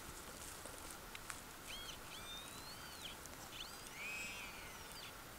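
A bird calling three times over faint steady background noise: a short call, then two longer calls that rise, hold and fall away.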